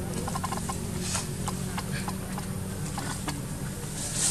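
Scattered light clicks and rustles, irregular and a little denser near the end, from a baby macaque moving on dry dirt and leaves, over a steady low hum.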